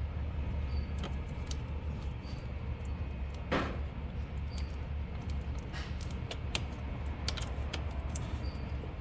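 Scattered light clicks and clinks of hand tools on metal over a steady low hum, with one brief whoosh about three and a half seconds in.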